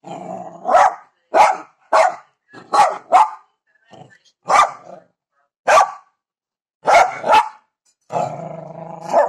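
Small long-haired dog growling at a stone on the ground, then barking in a string of about ten short, sharp barks spaced unevenly. Near the end it gives another long growl that ends in a bark.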